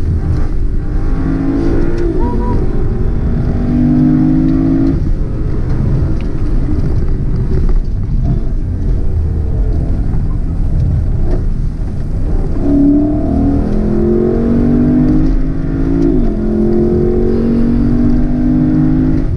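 Lexus LC500's 5.0-litre naturally aspirated V8 revving hard from inside the cabin, its note repeatedly climbing and then dropping or jumping as the 10-speed automatic shifts, over a steady rumble of road and tyre noise.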